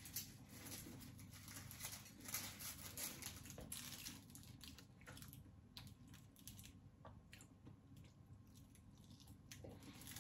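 Faint eating sounds: soft chewing of a fish cake and the rustle of its banana-leaf wrapper being handled, with scattered small clicks.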